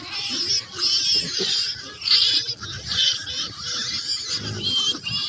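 Farm animals squealing and crying again and again, several high-pitched calls overlapping, a few each second.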